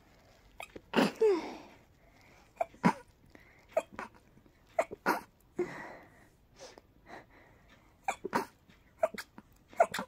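A person sneezing in a rapid run of short sneezes, about a dozen in all, with breathy in-breaths between them; the loudest sneeze comes about a second in.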